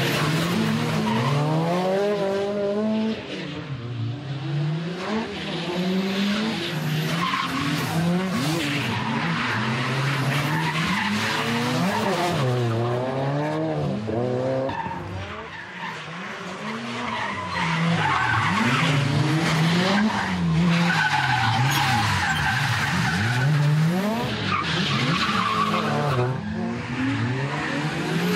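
A Nissan Skyline R32 GT-R and a second car drifting in tandem. Their engines rev up and down over and over while the tyres squeal and skid. The sound falls back briefly twice, about a few seconds in and around the middle, then builds again.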